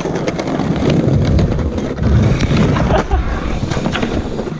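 Skateboard rolling and clattering on a concrete ramp, with repeated clicks and knocks, under a low rumble of wind on the microphone.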